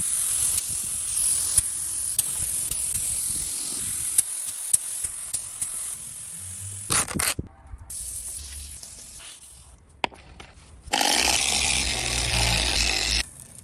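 Steady spraying hiss with small clicks, thinning out about seven seconds in. After a brief burst and a quieter stretch, a second, louder spray starts about eleven seconds in and cuts off abruptly near the end.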